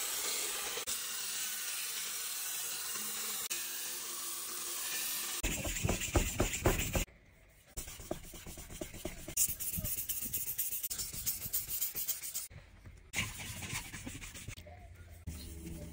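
A steel spatula edge being ground on a powered wet sharpening machine, a steady hiss of water spray and grinding. After about five seconds it changes to quick back-and-forth scraping strokes of the spatula on a wet whetstone, broken by a few brief drop-outs where the film is cut.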